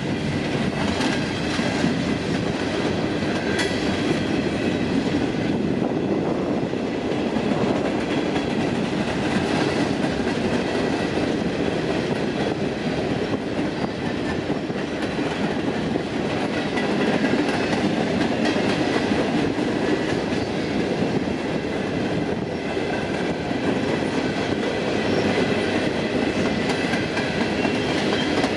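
Freight cars of a coal train rolling steadily past, wheels running over the rail with a continuous rumble and clickety-clack.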